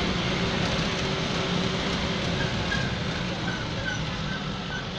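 Steady engine and road noise of a car driving along a paved road, heard from inside the cabin: an even hum and rush with no sudden events.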